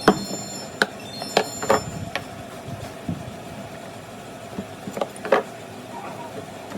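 Irregular knocks and clicks, as of hands-on work with objects. A few come in quick succession in the first two seconds, some with a brief high ring, then two more about five seconds in.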